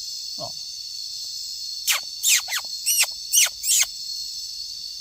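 Steady high-pitched chorus of cicadas. From about two seconds in, a run of six loud, sharp calls sweep quickly downward in pitch over the chorus.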